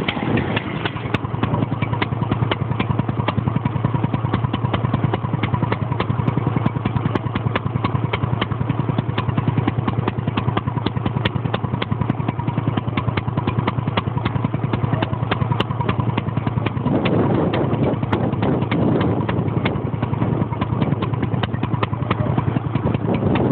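Scott SE single-cylinder stationary engine running steadily, its exhaust firing in a rapid, even beat over a low hum.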